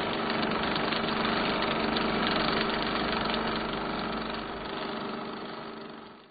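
An engine idling steadily, fading out near the end.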